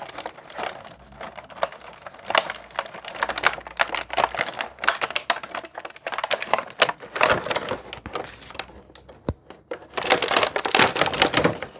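Packaging being handled and pulled apart: a dense run of clicks, crackles and crinkling, with a few louder bursts near the end.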